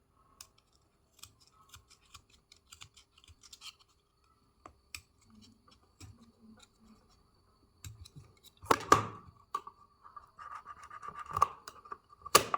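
A blade scraping and cutting at the plastic stakes that hold a laptop fan's housing together: scattered small clicks and scratches, then a few louder scrapes in the last few seconds.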